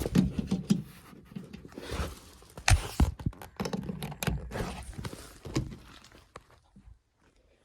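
Handling noise: a scatter of knocks, thumps and scrapes as things are moved about, with the loudest knocks about three seconds in, dying away near the end.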